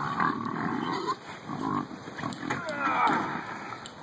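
Pigs grunting and squealing as they wait to be fed, with one squeal about three seconds in that slides down in pitch.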